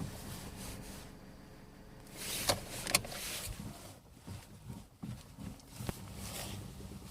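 Sharp knocks from the front end of a Kia Rio (JB), a pair about half a second apart and a single one later, over a low steady rumble. This is the knock the owner traces to the front suspension or steering column.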